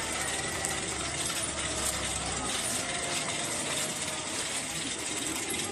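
A large crowd walking on a paved street: a steady hiss of many shuffling footsteps with scattered small clicks.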